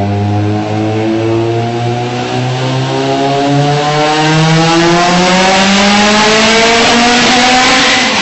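Car engine accelerating hard, its pitch climbing steadily for several seconds without a gear change.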